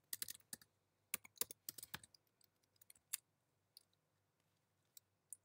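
Faint typing on a computer keyboard: a quick run of keystrokes in the first two seconds, then a few scattered key presses.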